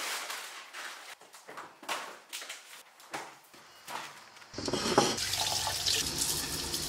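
Irregular short rustling and handling noises, then about four and a half seconds in a kitchen tap starts and water runs steadily into the sink over vegetables being rinsed by hand.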